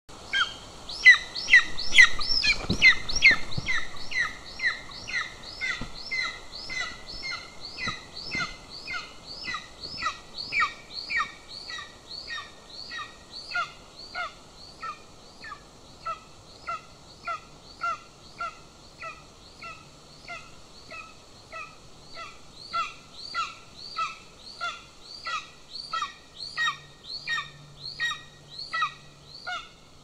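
Golden eagle calling over and over with short, high yelping notes, about two a second, without a break. In the first few seconds there is also louder rustling and flapping as the eagle spreads its wings on the nest.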